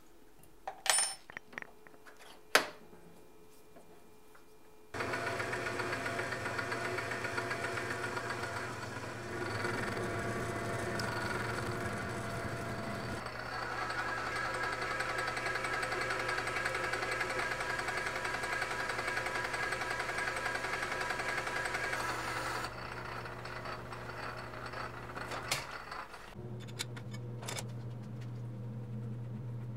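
A couple of sharp metallic clicks, then a metal lathe starts and runs with a steady hum while a cutting tool faces a metal disc held on a shaft. The cutting noise stops a little over two-thirds of the way through, and a steady hum picks up again near the end.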